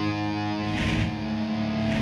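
Band rehearsal: distorted electric guitar over bass holding a chord, which changes about a second in. A short noisy hit marks the change, and another comes near the end.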